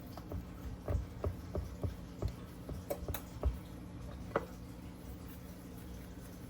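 Fingers pressing pieces of crescent-roll dough into the cups of a metal muffin pan: a run of light, irregular taps and knocks, about three a second, that stops about four and a half seconds in, over a steady low hum.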